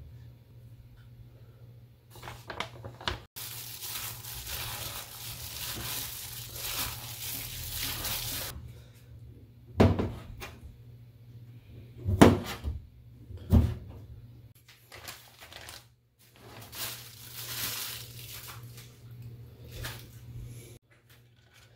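Kitchen prep sounds: a knife chopping chicken breast on a plastic cutting board, three sharp knocks the loudest, between stretches of rustling handling noise over a steady low hum.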